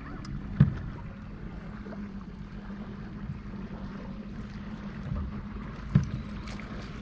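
Electric trolling motor on a bass boat humming steadily at low speed, with two sharp thumps on the boat, about half a second in and again near the end.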